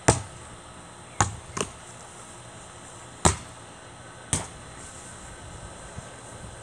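A basketball bouncing on concrete: five sharp thuds with uneven gaps, two of them close together just over a second in.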